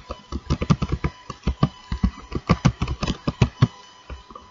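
Typing on a computer keyboard: a quick, irregular run of keystrokes that stops about three and a half seconds in.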